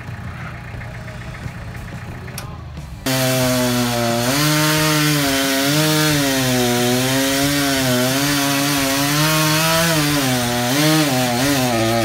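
A tractor engine idles for about three seconds. Then a chainsaw cuts suddenly in, running loud as it bucks a felled tree trunk, its pitch rising and falling as the chain bites into the wood and eases off.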